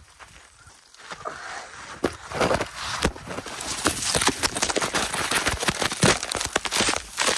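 Scrabbling on a steep, crumbly badland dirt slope, then sliding down it: loose dry soil crunching and rushing, with many knocks as the camera tumbles. The sound grows from about a second in and is densest and loudest in the second half.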